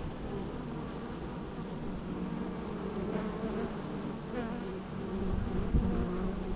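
Several bees buzzing at once, their overlapping hums wavering in pitch. A brief low thump sounds near the end.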